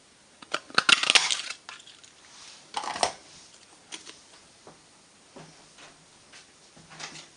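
Stampin' Up! Duet Banner Punch cutting through cardstock: a crunchy clunk about a second in and another near three seconds, then a few light clicks of paper being handled.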